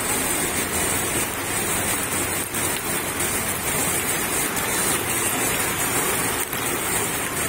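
Heavy rain and floodwater making a steady, even hiss.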